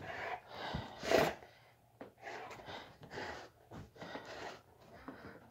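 Bully dog breathing hard through its nose in a series of short, noisy breaths while gripping and tugging a rope toy; the loudest comes about a second in.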